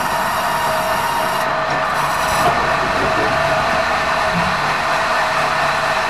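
Band sawmill running and ripping a squared meranti timber as it is fed through the blade: a loud, steady sawing noise over a constant tone.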